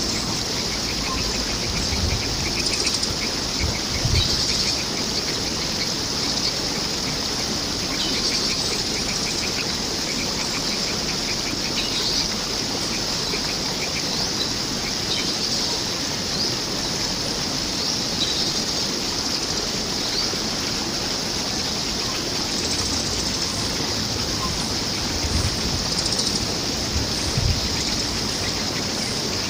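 Steady rush of flowing water, with wild birds chirping at intervals over it and a few brief low thumps.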